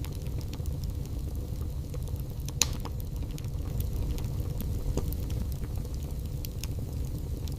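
Wood fire burning in a fireplace: a steady low rumble with scattered crackles and small pops, one sharper pop about two and a half seconds in.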